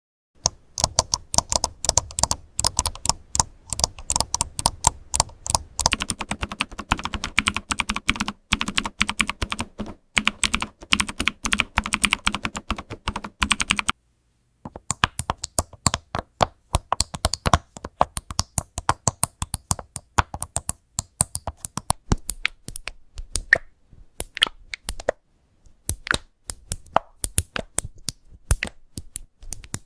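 Computer keyboard typed quickly and continuously: a dense run of key clicks with brief pauses, stopping completely for about half a second midway.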